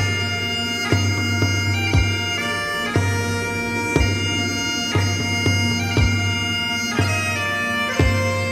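Bagpipes playing a melody over their steady drones, with a beat struck about once a second.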